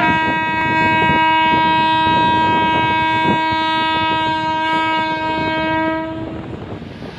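Indian Railways electric locomotive air horn sounding one long, steady blast. It fades away about six seconds in, leaving a steady rushing noise.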